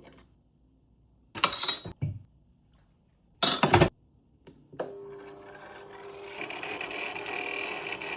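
Two short clinks of hard parts being handled on the Ninja Luxe Cafe espresso machine. Then, about five seconds in, a steady mechanical hum starts, growing into a fuller whirring run.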